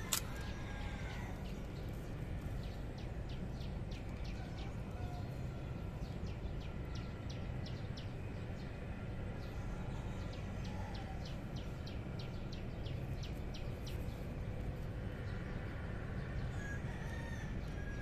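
Outdoor backyard ambience: chickens calling from a coop, with a small bird chirping in a quick series, about three chirps a second, over a steady low background noise.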